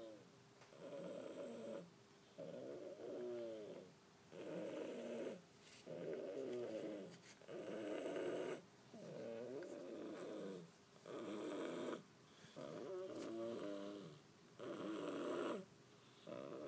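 A pet cat snoring, a rhythmic snore on each breath: about one wavering, pitched snore every second and a half, each lasting about a second.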